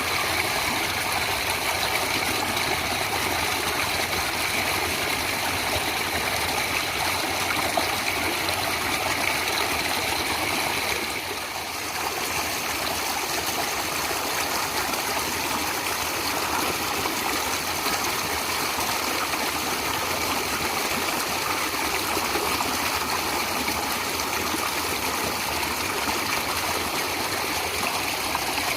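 Natural running water, a stream flowing with a steady rushing noise that dips briefly softer about eleven seconds in.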